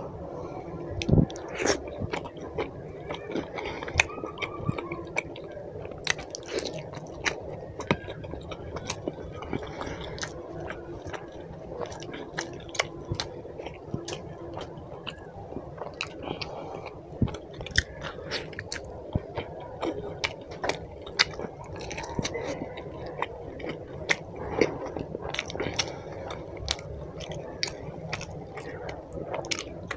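A person eating chicken curry and roti by hand, close to the microphone: chewing and wet smacking mouth sounds, with the squish of roti torn and dipped in gravy. These come as many short, irregular clicks.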